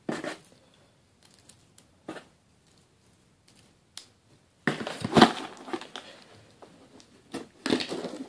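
Cardboard shipping box being handled and opened by hand: scattered light taps and knocks, then a louder stretch of rustling and scraping cardboard about five seconds in and another near the end.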